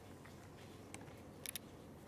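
Quiet room tone with a few light clicks: one about a second in and a quick cluster of two or three sharper ones about a second and a half in, from the cats moving about on the wooden floor by the feeding stand.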